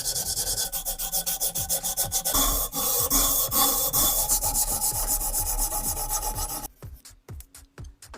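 Rapid back-and-forth scraping strokes, about four or five a second, as rust is rubbed off a pistol part by hand with an abrasive. The strokes stop abruptly about two-thirds of the way through, leaving faint light ticks.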